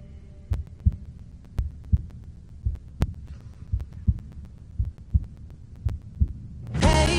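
A heartbeat sound in the soundtrack: low double thumps, lub-dub, about once a second over a faint hum. Loud rock music cuts in near the end.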